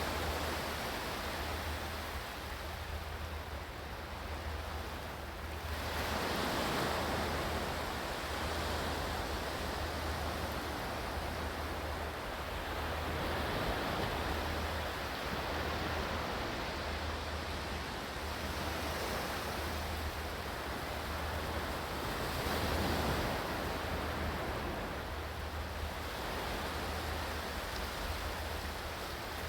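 Ocean surf: a steady rushing wash of water that swells and falls back every few seconds.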